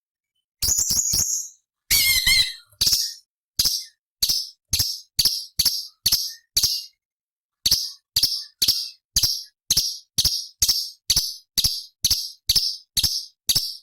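Cucak cungkok (orange-bellied leafbird) song: a quick chattering phrase and a short warble, then a long run of sharp, high chip notes about two a second, broken by one brief pause.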